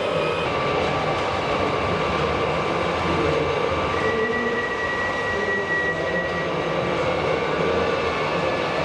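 Steady mechanical din of a busy exhibition hall with RC model machines working, with a thin high whine from about four to six and a half seconds in.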